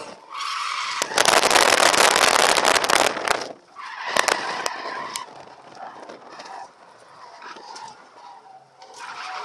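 Car drifting, heard from inside the cabin: a loud blast of skidding tyre noise lasting about two seconds starts about a second in. Afterwards there are a few sharp crackles and then quieter engine and tyre noise.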